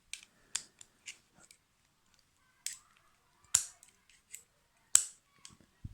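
Sharp metallic clicks and snaps from a Gerber multi-tool being handled as its plier head is refitted into the frame. Two clicks stand out as loudest, one about halfway through and one near the end.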